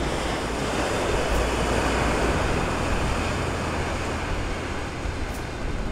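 Surf breaking on a lava-rock shore, a steady rushing noise.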